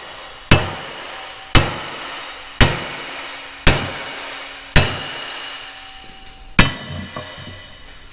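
Heavy hammer blows on a steel drift driving at a seized axle spindle pin of a Landoll Tilloll tillage tool: six hard strikes about a second apart, each ringing metallically, the last after a slightly longer pause, then a few lighter knocks near the end. The spindle does not budge; the owner thinks a failed bearing wore a groove in the pin.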